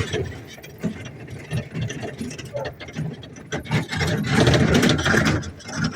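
Wheeled summer dog-sled cart rattling and clanking as a dog team pulls it along, with irregular clicks and knocks that grow louder near the end.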